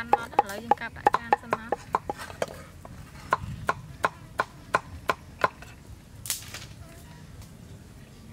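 Cleaver chopping shallots on a wooden chopping block in quick, even strokes, about four a second. The strokes pause briefly and then stop about five and a half seconds in. A short scrape of the blade follows as the mince is scooped up.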